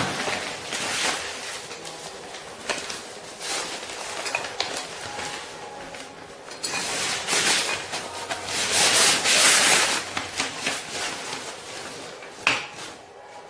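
Hands handling material in uneven bursts of rustling and rubbing, the longest and loudest about seven to ten seconds in, with one sharp click near the end.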